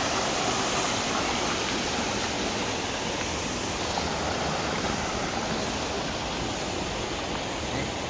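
Mountain stream water running over and between boulders, a steady rushing without change.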